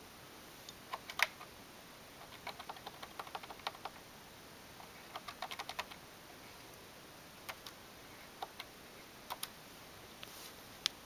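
Keys on a Thrane & Thrane telephone handset's rubber keypad being pressed: faint scattered clicks, with quick runs of presses about two and five seconds in.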